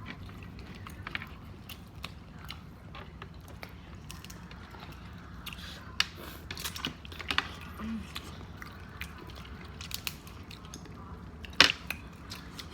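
Eating sounds close to the microphone: chewing and mouth noises with scattered short clicks and crackles of seafood being eaten, and one sharper click about a second before the end.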